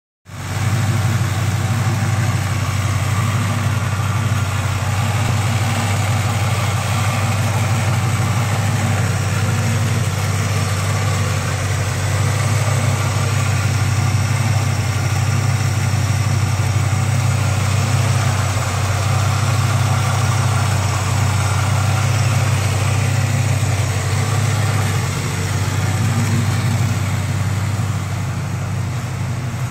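Chevrolet El Camino's carbureted V8 idling steadily, heard up close with the hood open.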